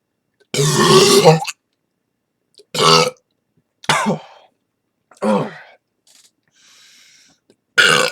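A man belching repeatedly after chugging a can of carbonated Coca-Cola: one long, loud burp about half a second in, followed by four shorter burps.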